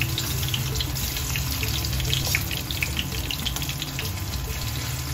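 Marinated soya chunks sizzling as they are dropped into hot oil in a frying pan: a steady hiss dotted with quick crackles, over a low steady hum.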